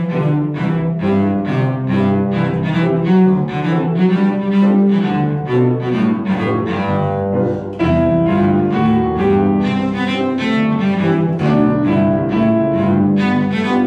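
A bowed cello and a grand piano playing a duet, with steady, evenly spaced note attacks throughout.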